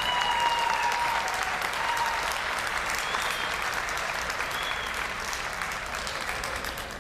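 Audience applauding, easing off slightly toward the end.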